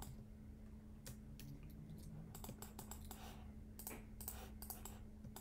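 Faint, irregular clicks and taps of a computer keyboard and mouse, over a low steady hum.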